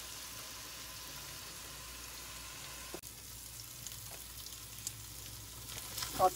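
Two thick beef steaks sizzling steadily in olive oil in a Neoflam nonstick grill pan.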